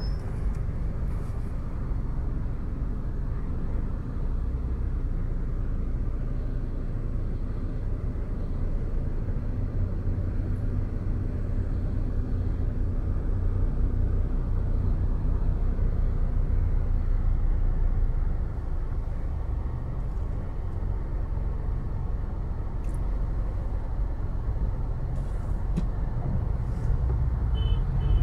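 Steady low engine and road noise of a car moving through city traffic, heard from inside the cabin. It grows a little louder through the middle and eases off about two-thirds of the way in.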